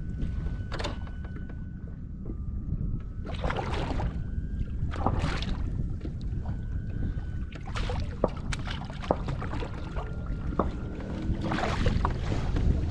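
Wind rumbling on the microphone, with several short bursts of hiss and a few sharp clicks.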